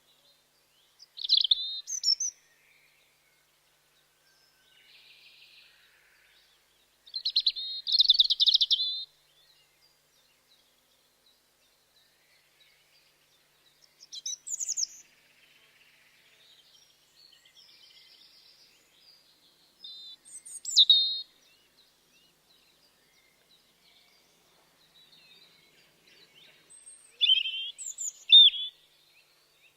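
European robin singing: five short, high-pitched phrases of quickly wavering notes, each a second or two long and spaced about six seconds apart, with fainter phrases in between.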